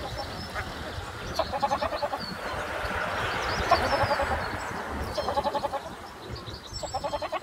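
An animal calling four times, each call a short run of rapid stuttering pulses, about a second and a half apart, with small birds chirping.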